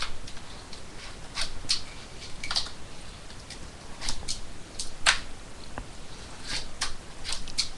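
A fingerboard being skated on a small desktop platform: a dozen or so sharp, irregular clicks and taps as the board's tail pops and the board lands and hits the surface, with brief rolling of its small wheels between.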